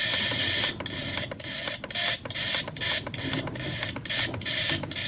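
Static hiss from a toy FM clock radio tuned between stations, with a run of sharp, fairly regular clicks, about three a second, starting just under a second in.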